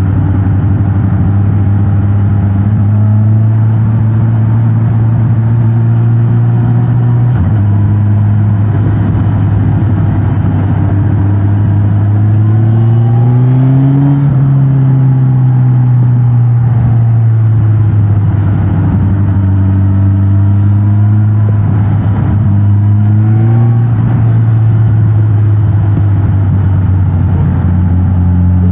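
Suzuki GSX-S1000GT's inline-four engine through its stock exhaust while riding in town. It holds a steady mid-rev note, dips briefly about a quarter of the way in, rises in pitch as it accelerates about halfway through and then eases off slowly, and rises again briefly later and near the end.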